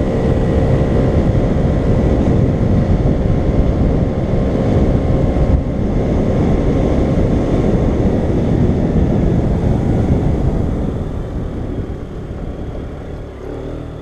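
Lance Cabo 50 scooter being ridden over rough off-road ground: the small engine runs under a steady, heavy rumble of wind buffeting on the microphone, easing off over the last few seconds.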